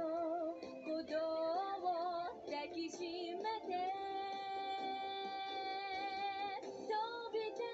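A female voice singing, running through a few quick ornamented notes and then holding one long note with vibrato for about three seconds, with music behind it.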